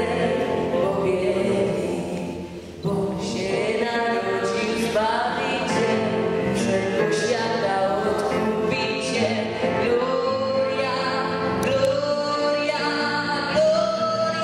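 A teenage boy sings a Polish Christmas carol into a microphone over instrumental accompaniment. The sound dips briefly about two seconds in, then the song carries on.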